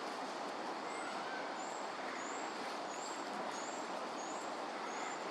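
A small bird calling a short, thin, high note over and over, about twice a second, starting about a second in, over a steady rushing background noise.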